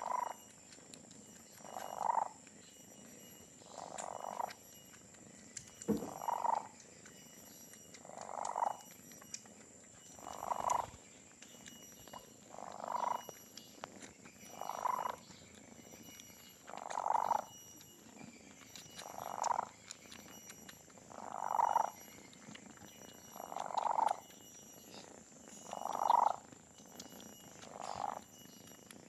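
Orange domestic kitten purring loudly, the purr swelling in even pulses about every two seconds.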